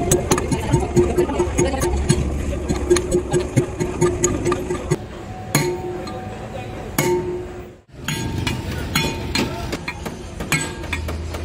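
Hammer blows on a steel punch driving a truck's rear wheel stud through the hub flange: a quick run of sharp metallic clinks, each followed by a ringing tone from the hub and drum, with a brief break about eight seconds in.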